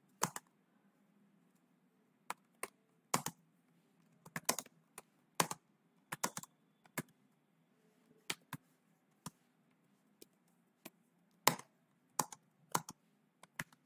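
Computer keyboard being typed on in slow, irregular keystrokes with short pauses between them.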